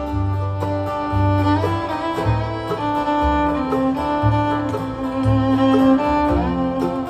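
Instrumental break in a country gospel song: a fiddle plays the lead melody with sliding notes over a steady bass line that changes note about once a second.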